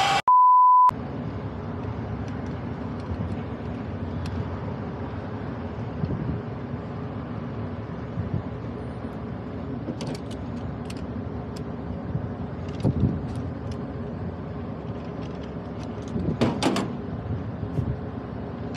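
A short, steady high beep, then a steady low rumble and hiss of background noise with a few scattered clicks and knocks, the loudest cluster near the end.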